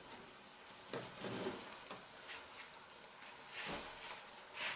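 Beans with onions and tomatoes sizzling in a pot, with a few brief scrapes or knocks as they are stirred.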